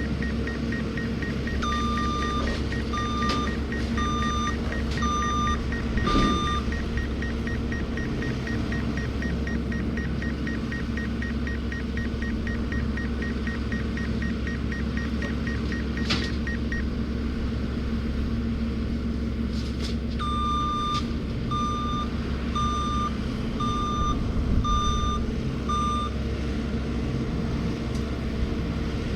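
Drone warning beeps, two runs of five or six evenly spaced beeps about one a second, over a steady machine hum from the skid steer's tree-shredder work.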